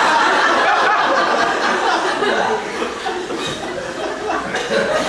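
Audience laughing, loudest at the start and dying down over the next few seconds.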